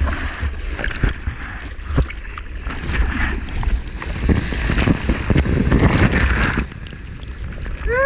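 Rushing and splashing seawater heard from a camera on a surfer: hand-paddling strokes into a small wave, then water rushing past as the board rides through the whitewater, with wind rumbling on the microphone. Sharp ticks of water hitting the camera are scattered through it.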